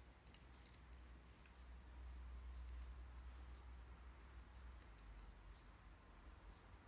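Near silence: a low, steady room hum with a few faint, scattered clicks.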